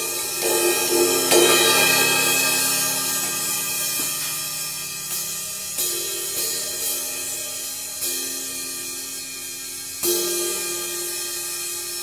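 An 18-inch Zildjian K dark crash, medium thin, fitted with two rivets to turn it into a crash/ride, struck with a wooden drumstick about every one to two seconds, each hit left to ring out in a long wash. The loudest hits come about a second in.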